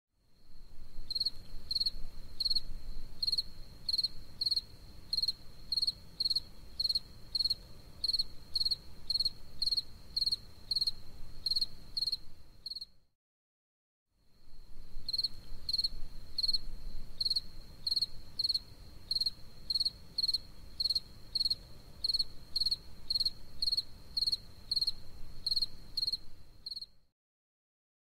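Spring field cricket chirping: a steady high trill with louder chirps a little under two a second. It stops about 13 seconds in, starts again about a second later, and stops shortly before the end.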